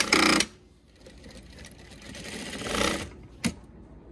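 Yamata FY9300-D4 direct-drive industrial straight-stitch sewing machine stitching through two layers of webbing in short runs. A fast run stops about half a second in, and a second run builds up near the middle and stops. A single sharp click comes near the end.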